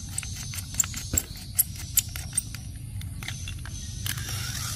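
Battery-powered Chuggington Dunbar toy locomotive's small electric motor whirring steadily, its wheels spinning freely while it is held. Many light clicks and taps of a screwdriver on plastic as the battery-cover screw is tightened.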